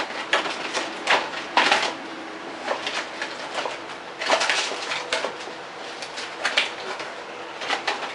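Packaging of an airsoft pistol being opened and handled by hand: irregular crinkling and rustling, a few sharp crackles a second at uneven intervals.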